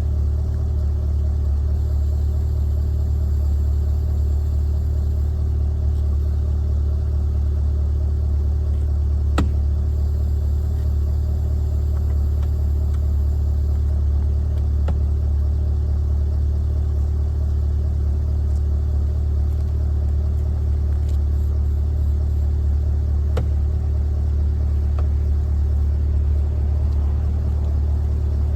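C8 Corvette's V8 engine idling steadily with a deep, even rumble, with a few sharp clicks over it.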